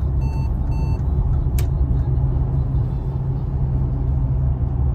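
Road noise heard inside a moving car's cabin: a steady low rumble from the tyres and engine. Two short electronic beeps sound within the first second, and a single click comes about a second and a half in.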